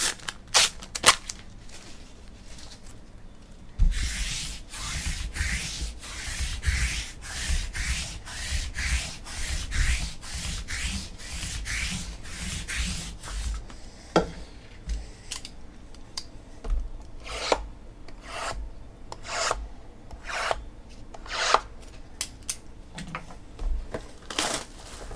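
Hands rubbing and sliding in a steady run of strokes, about two a second, for roughly ten seconds. Then come scattered taps and crinkles as a sealed trading-card box is handled.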